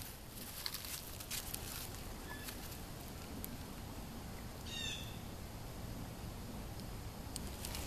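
Quiet woodland background with one brief bird call about five seconds in, a quick cluster of falling notes.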